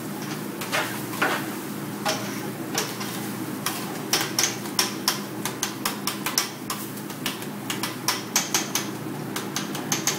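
Two metal spatulas clacking and scraping on a steel griddle as scrambled eggs are chopped and turned: irregular sharp clicks, sometimes several in quick runs, over a steady low hum.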